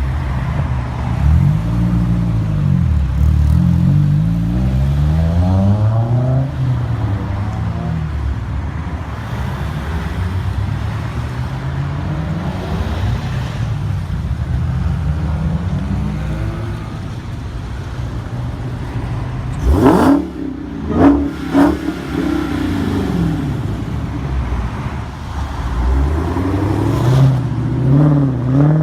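Several Honda S2000 four-cylinder engines revving and accelerating one after another as the cars pull away and pass, their pitch rising and falling over each other. About two-thirds of the way through, three or four loud sharp cracks stand out.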